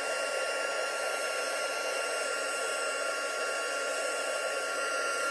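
Handheld heat gun blowing steadily: an even rush of air with a thin steady whine from its fan motor, as it shrinks heat-shrink tubing over a soldered wire joint.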